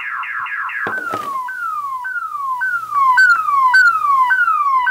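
Directed DS4WS wireless car-alarm siren in full trigger, running on its built-in backup battery because the vehicle's 12-volt power has been cut. It sounds a fast warble for about the first second, then after a click switches to a repeating downward-sweeping tone, about two sweeps a second.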